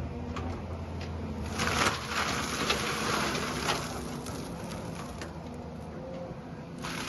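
Excavator-mounted mulcher head grinding and shredding material over the steady run of the Volvo excavator's diesel engine. The grinding swells louder about two seconds in and again briefly near four seconds, with scattered sharp knocks.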